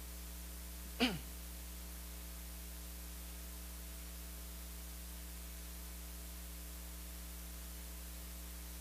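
Steady electrical mains hum, with one brief sound about a second in that falls quickly in pitch.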